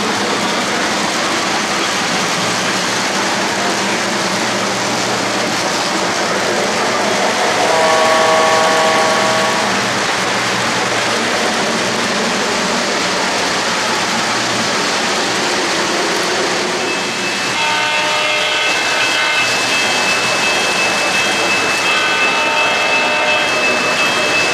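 O-gauge model train cars rolling along three-rail track, a steady rumble of wheels on the rails. About eight seconds in a pitched horn-like blast sounds for about a second and a half, and from about seventeen seconds a steady high tone comes in, with short pitched sounds recurring over it.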